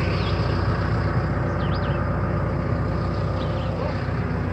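Tractor engine running steadily under load while pulling a transplanter, with a bird chirping briefly a few times over it.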